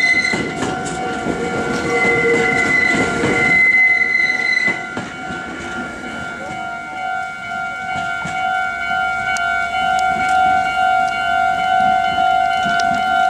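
Meitetsu electric train running over a level crossing, wheels clattering, for the first five seconds or so, with the crossing's electronic warning bell ringing. Once the train has gone by, the warning bell keeps ringing on its own.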